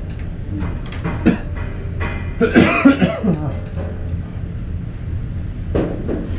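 A person coughing about two and a half seconds in, over a steady low hum, with a light tap about a second in.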